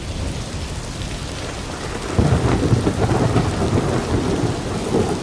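Steady rain with low rolling thunder that swells about two seconds in.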